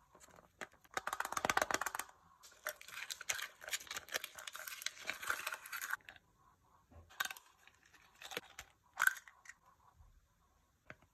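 Foil wrapper crinkling and tearing as it is peeled off a chocolate egg, for about five seconds. Then a few sharp cracks and clicks as the chocolate shell is broken open.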